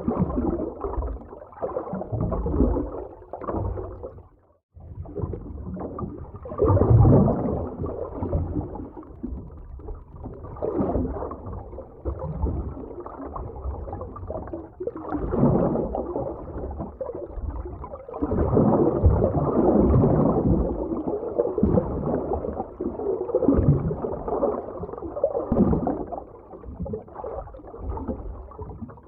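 Underwater ocean ambience: muffled, low water movement gurgling and surging in irregular swells. It cuts out briefly about four seconds in.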